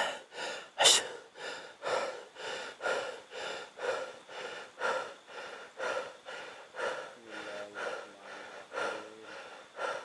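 A person breathing hard and fast in rhythmic gasps, about one breath a second, with the sharpest gasps at the start and about a second in. There is a faint low hum near the three-quarter mark.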